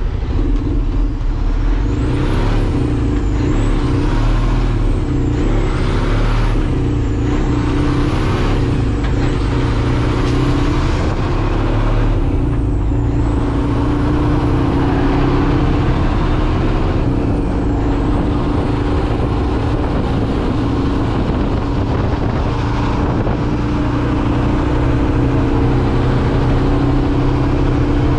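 Cummins X15 diesel in a Kenworth T800 dump truck, heard in the cab, accelerating up through the gears. The engine pitch and a high turbo whistle climb in each gear and drop at each upshift: several quick shifts in the first ten seconds, then longer pulls.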